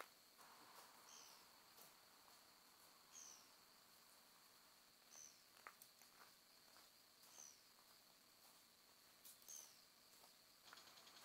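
Faint evening outdoor ambience: a steady high insect trill, with a bird repeating a short descending call about every two seconds. A few faint clicks in between.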